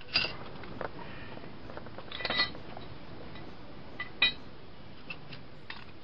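Sharp metal clinks and knocks of a pipe wrench and a metal pipe with its threaded fitting being handled and tightened: one about a quarter second in, a short cluster around two seconds in, the loudest about four seconds in, with a few lighter taps between, over a steady background hiss.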